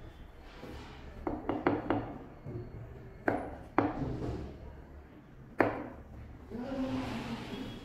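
Kitchen knife chopping through a vegetable and striking a plastic cutting board: a quick run of knocks about a second in, then three single sharper knocks, the last one the loudest.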